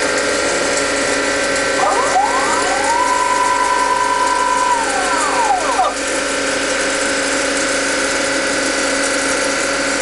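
MEP Shark 332 NC evo automatic bandsaw running its automatic cutting cycle: a steady machine hum with several tones, and about two seconds in a whine that rises, holds level for a couple of seconds and falls away near six seconds.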